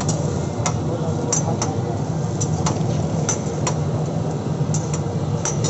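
Metal spatulas clicking and tapping on a flat griddle, about a dozen sharp irregular strikes over the steady din of a busy food stall.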